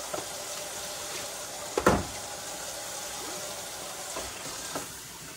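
Kitchen handling sounds over a steady hiss: one loud clunk about two seconds in, then a few lighter knocks.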